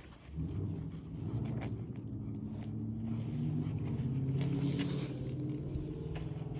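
An engine running steadily with a low hum, swelling to its loudest a little past the middle, with a few light clicks or scuffs over it.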